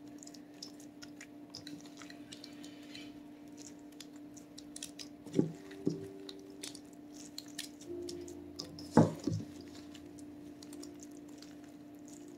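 Wet grated fresh coconut being mashed by hand onto the frosted sides of a cake, a string of soft, wet squishing and crackling sounds. A couple of louder knocks come about five and a half seconds in and again about nine seconds in, over a faint steady hum.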